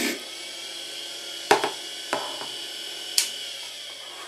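Washing-machine motor spinning its shaft as a makeshift lathe, a steady whine over a low hum, with the tail of a file stroke on the shaft at the very start. Four sharp clicks come between about one and a half and three seconds in, and the motor begins winding down near the end.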